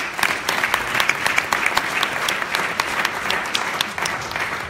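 A small audience applauding, with some sharp, loud claps close by among the general clapping.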